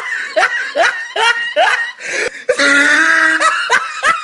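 High-pitched laughter in quick bursts, each one falling in pitch, with a short break about two seconds in, a held note, then more quick bursts.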